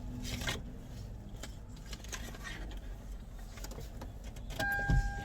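Low rumble inside a car, with a few faint clicks and rustles. Near the end a steady high tone starts and holds.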